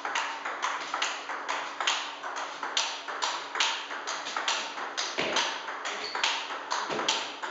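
Table tennis rally: the ball clicks sharply off the bats and the table about four times a second as forehand smashes meet backhand blocks, with two dull low thumps about five and seven seconds in.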